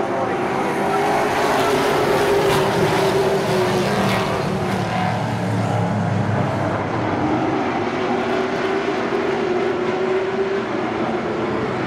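A pack of pro stock race cars' V8 engines running together on the track, a steady engine drone whose pitch wavers slightly, a little louder about two to four seconds in.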